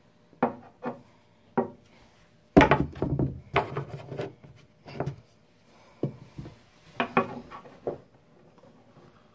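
Irregular knocks, taps and rubbing on wood as a closet-pole holder and its screws are handled and fitted to the wall, loudest about three seconds in.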